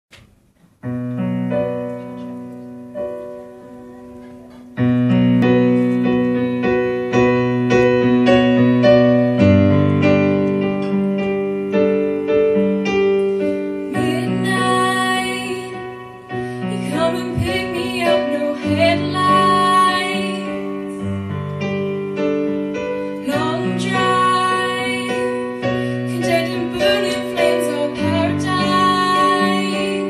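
Piano accompaniment playing chords, quieter at first and fuller from about five seconds in, with a woman's voice singing a song with vibrato over it from about fourteen seconds in.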